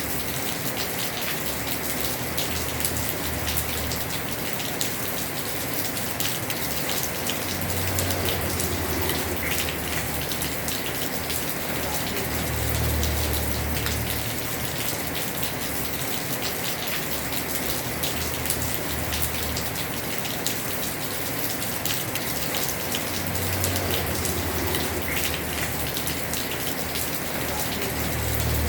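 Heavy rain falling on a house roof: a steady hiss thick with the patter of drops, with a low rumble swelling up briefly about four times.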